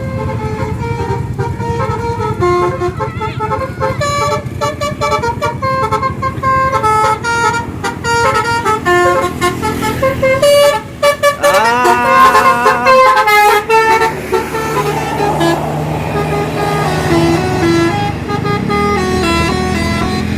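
A bus's multi-tone "telolet" horn playing a tune of quick stepping notes over a running bus engine. About twelve seconds in, horn tones sweep up in pitch as they sound.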